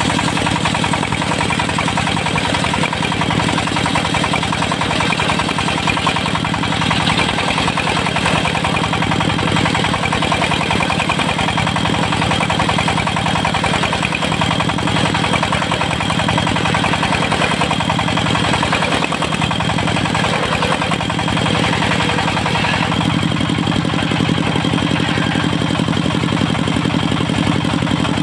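Diesel engine of a mobile circular sawmill running steadily, driving the spinning saw blade.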